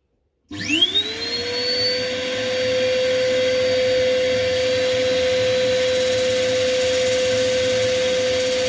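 Power sanding a turned bowl's base with a sanding pad in a cordless drill against the work on the lathe. A motor whine starts about half a second in, rises quickly in pitch and then holds steady over the hiss of the abrasive.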